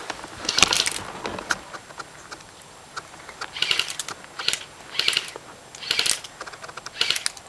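Footsteps crunching on dry ground and brush, short crunches coming roughly once a second after a brief pause about two seconds in.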